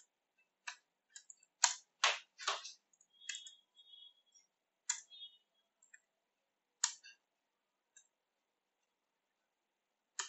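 Computer keyboard typing: irregular, scattered keystroke clicks, the loudest few close together about two seconds in.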